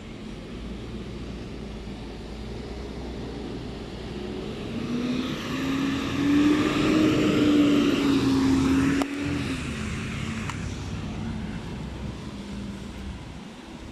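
Volvo FE 300 garbage truck's six-cylinder diesel engine pulling along and driving past, its note rising and loudest in the middle. About two-thirds through it drops off abruptly with a click, then runs on at a lower pitch as the truck moves away.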